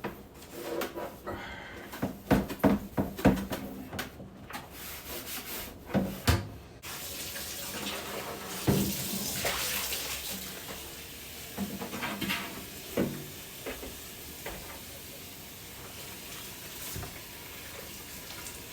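Clatter and knocks of things being handled at a kitchen sink. About seven seconds in, a faucet comes on and runs steadily into the sink, with a few more knocks over it.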